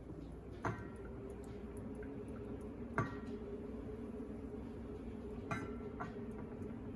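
Wooden spatula stirring caramel in a stainless-steel saucepan, knocking against the pan with four short ringing clinks, about a second in, at three seconds and twice near the end. A steady low hum runs underneath.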